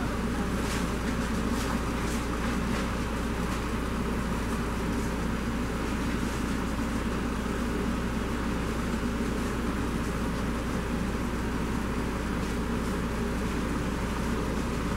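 Steady background rumble and hiss at an even level, with a few faint clicks in the first few seconds.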